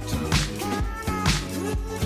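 Outro music: an instrumental beat with a sharp snare-like hit about once a second over steady bass and held melody notes.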